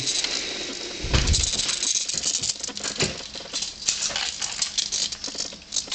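Rattling and clicking of a model helicopter's small plastic and metal parts being handled and turned, with a dull thump about a second in and another about three seconds in.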